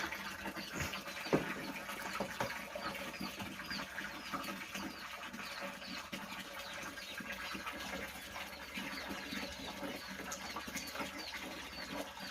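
Small birds chirping: many short, high chirps repeating rapidly, with a few faint knocks.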